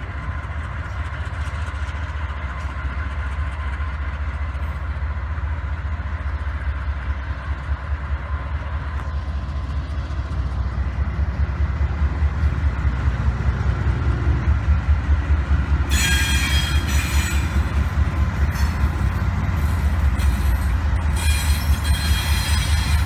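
Norfolk Southern diesel locomotives, led by a GE C44-9W, rumbling past with a deep, throbbing engine drone that grows louder as they draw near. Bursts of high-pitched squealing come about two-thirds of the way in and again near the end.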